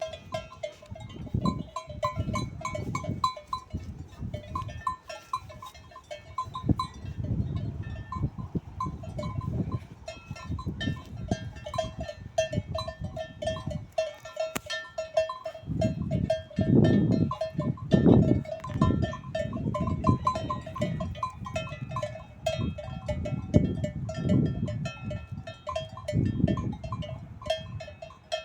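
Many sheep bells (cencerros) clanking irregularly as a flock moves, with a low rumble that comes and goes.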